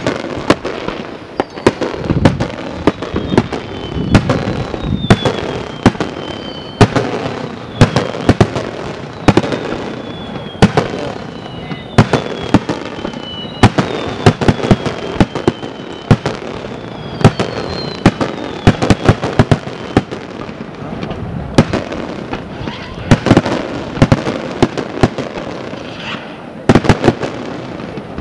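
Starmine fireworks barrage: aerial shells launching and bursting in quick succession, a dense run of sharp bangs with short falling whistles heard again and again.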